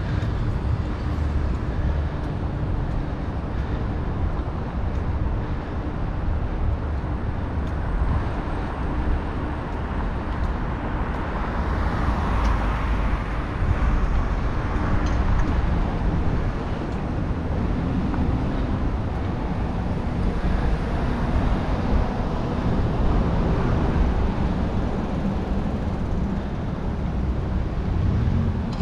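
Wind rumbling on a helmet-mounted GoPro Hero9's microphone while cycling, over steady city traffic noise. The noise swells for a few seconds about halfway through.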